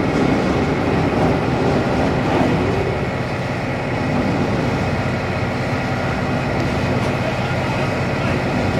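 Iron ore unloader crane's machinery running: a loud, steady mechanical noise with a few steady whining tones on top.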